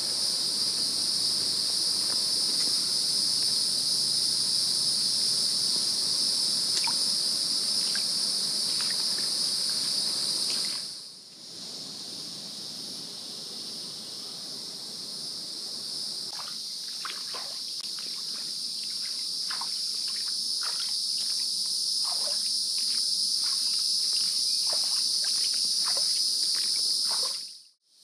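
Insects droning steadily at a high pitch, dropping away briefly about eleven seconds in. Over the later part come faint scattered clicks and crackles.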